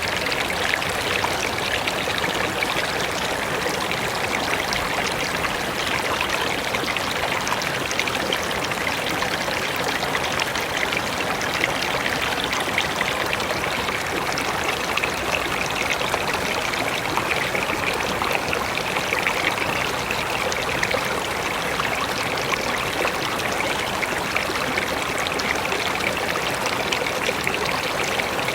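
Mountain river rushing and splashing over rocks, a steady, even flow of water.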